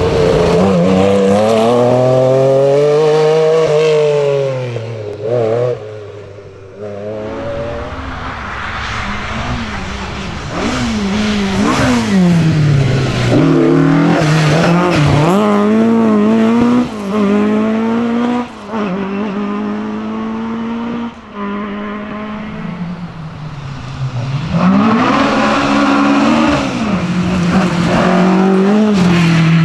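Historic rally cars, an MG Metro 6R4 and then Ford Escort Mk2s, passing one after another at speed. The engines rev hard, dropping and rising in pitch again and again through gear changes and corners. The sound is loudest at the start and over the last few seconds.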